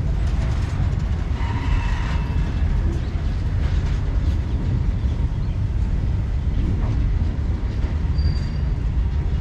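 Loaded open-top freight wagons rolling past on the track: a steady heavy rumble of wheels on rail, with a brief faint wheel squeal about a second and a half in.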